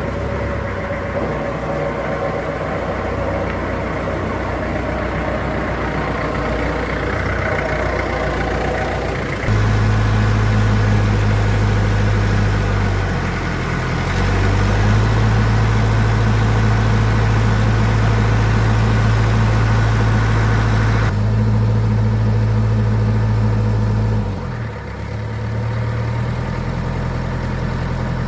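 Vintage truck's engine running, its steady low note stepping up louder and higher about a third of the way in, then dropping back to a lower, idle-like note near the end.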